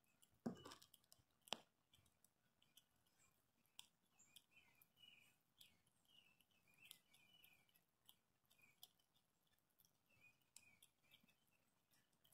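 Gray squirrel gnawing and chewing a walnut held in its paws: faint, scattered crunching clicks, with a sharper click about a second and a half in.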